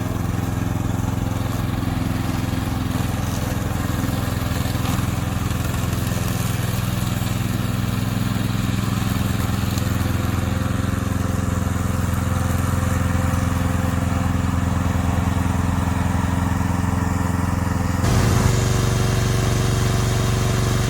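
Petrol engine of a remote-control lawn mower (a 7.5 hp Yamaha) running steadily. The sound shifts abruptly and gets a little louder about three seconds before the end.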